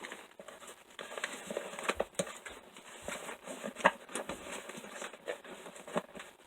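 Small toys and a box being handled and set into a gift box: scattered light taps, clicks and rustles, with one sharper knock about four seconds in.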